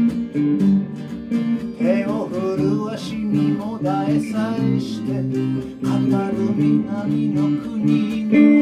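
Live band music: an acoustic guitar strummed steadily under an electric guitar playing melodic lines, with a man's voice singing.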